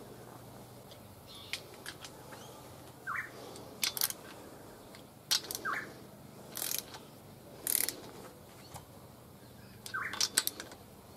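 Scattered metal clicks and short ratcheting rasps of a socket wrench snugging the crankshaft main bearing cap bolts on a 308 V8 block. A bird chirps three times.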